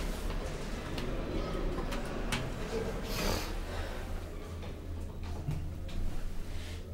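Schindler elevator heard from inside the car: a few light clicks, a brief rush of noise about three seconds in, then a steady low hum from the car's drive that carries on to the end.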